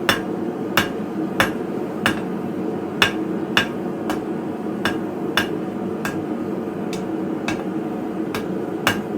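Blacksmith's hammer striking hot steel on an anvil in an even rhythm, about one and a half blows a second, over a steady low background hum.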